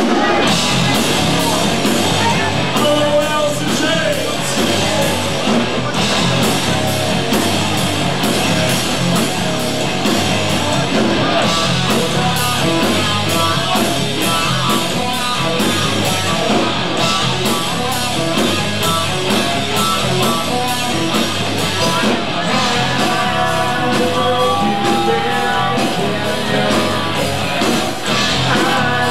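A live rock band playing: electric guitars and a drum kit with a steady beat, and a singer's vocals over them.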